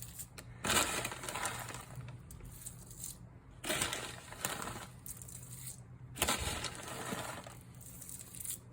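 Dehydrated rice and beans shaken from their packet into the cooking pot: rustling, pattering pours in three or so short bursts.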